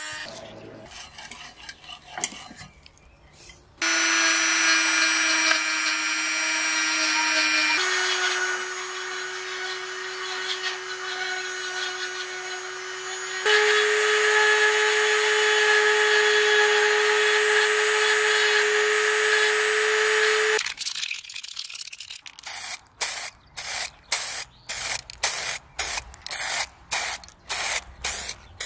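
A handheld rotary tool runs with a steady high whine and grinds and polishes metal in three long runs, each a little higher in pitch than the last. Near the end an aerosol spray can hisses in many short bursts.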